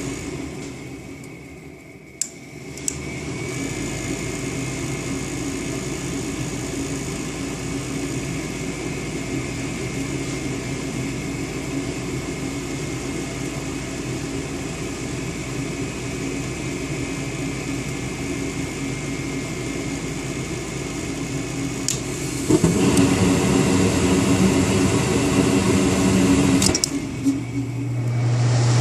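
Goodman furnace running with a steady mechanical hum, with a click about two seconds in. Late on, a louder, rougher rushing sound comes in for about four seconds and drops out, and a strong low hum starts right at the end.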